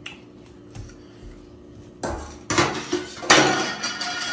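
Hands handling food and plates at a meal: a couple of faint clicks, then about two seconds in a loud run of crackly rustling and clinking that lasts some two and a half seconds.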